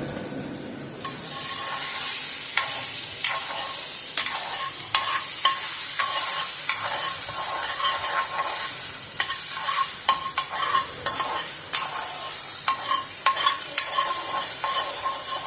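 Food sizzling in hot oil in a pan while a spoon stirs it, with repeated clicks and scrapes of the spoon against the pan. The sizzling picks up about a second in.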